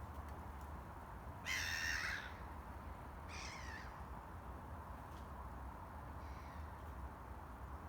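Harsh bird calls, three in all: a loud one about a second and a half in, a second with a falling pitch about two seconds later, and a faint one near the end. A steady low hum runs underneath.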